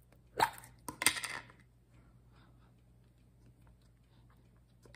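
Handling of a tin can of almonds: a short rattle about half a second in, then a click and a brief rattle of nuts in the can around a second in.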